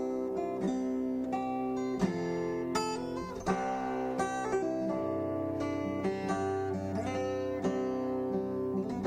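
Background music: acoustic guitar, plucked and strummed, with notes ringing steadily.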